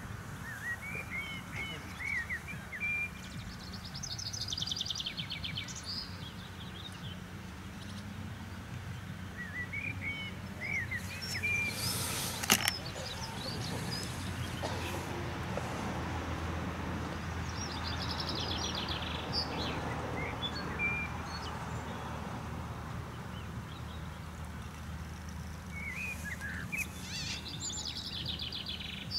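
A songbird singing the same short phrase again and again, a few chirps then a buzzy trill, about every eight or nine seconds, over a steady low rumble. One sharp knock about halfway through.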